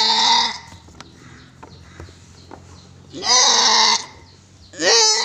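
A goat bleating loudly during a hand-assisted kidding: one call ends just after the start, a second comes about three seconds in, and a third begins near the end.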